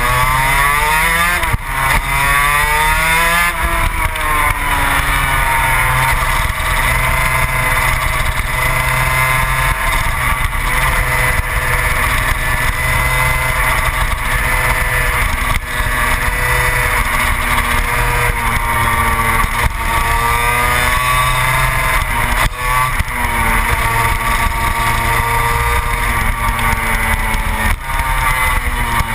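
Yamaha TZ250 two-stroke twin engine of a 250 gearbox superkart at race speed, heard onboard. The revs climb and drop with quick gear changes twice in the first few seconds, hold high and steady for a long stretch, then dip and pick up again several times past the middle.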